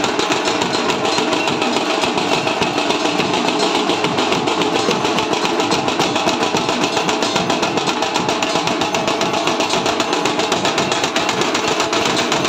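Fast, continuous clatter of aarti percussion: metal bells and gongs beaten rapidly in an unbroken rhythm, with a steady metallic ring underneath.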